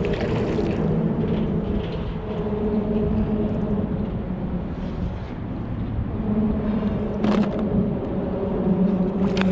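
A hooked striped bass splashing at the surface beside a kayak, with short splashes near the start and again about seven seconds in, over a steady low hum and water noise.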